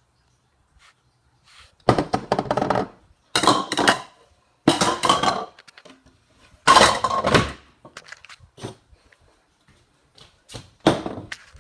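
A bowl and other kitchen things clattering as they are handled, in about five separate bursts of rattling and knocking, the first about two seconds in.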